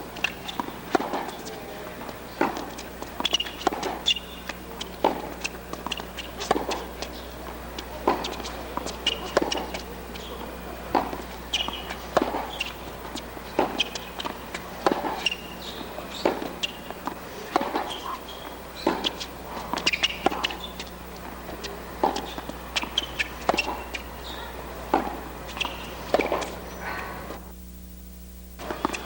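Tennis rally on a hard court: repeated sharp knocks of racket strikes and ball bounces, every second or so, with footsteps on the court, over a steady low hum. The knocks stop for about a second shortly before the end.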